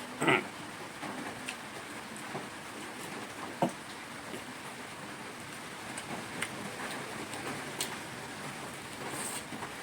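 Steady rain falling, with scattered drips and two brief knocks, one just after the start and one about three and a half seconds in.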